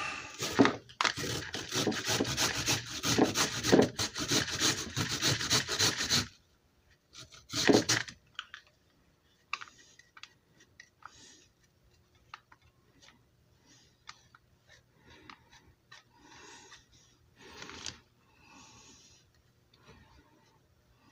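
Fresh turmeric root being grated on a handheld rasp grater: about six seconds of fast, loud rasping strokes, a short second burst a little later, then fainter scattered scrapes and taps.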